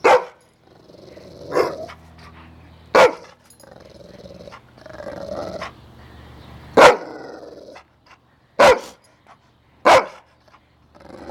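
A black-and-tan dog barking: six short, sharp barks at uneven gaps of one to four seconds, with a lower growl between barks about halfway through.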